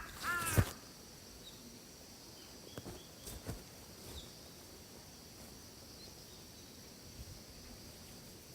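A crow caws once at the very start, then faint forest ambience: a steady, high insect hiss with a few soft ticks.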